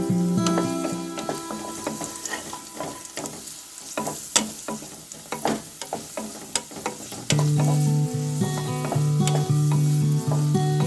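Fried rice sizzling in a pan as it is stirred, with sharp clicks and scrapes of the spatula against the pan. Background music plays for the first second or so, drops away, and comes back louder about seven seconds in.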